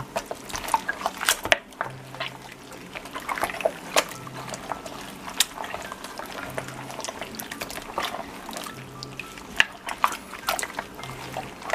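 Wet squishing and sloshing of meat being mixed by hand in a liquid marinade, with irregular small clicks and splashes.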